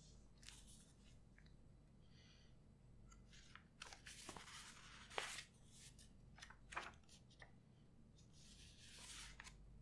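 Faint rustling and soft clicks of sketchbook paper pages being turned and handled, a few short sounds scattered through an otherwise quiet stretch.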